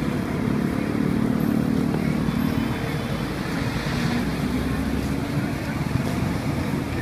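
Steady street traffic noise with motorbike engines running, including a low engine drone that is strongest in the first few seconds.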